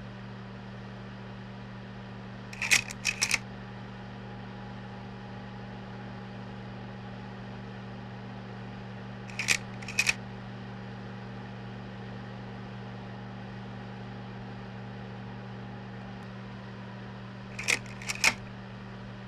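Slide projector running with a steady hum from its motor and fan, its slide-change mechanism clacking three times: each time a quick cluster of two or three sharp clicks, the first a few seconds in, then midway, then near the end.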